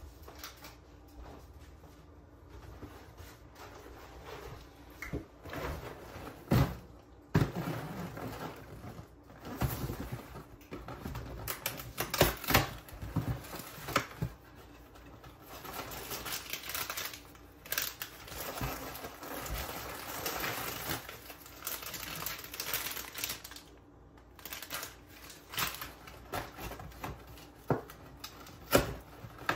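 Cardboard snack variety-pack box being opened and rummaged through by hand: irregular rustling, tapping and clicking of cardboard and the packs inside, in clusters.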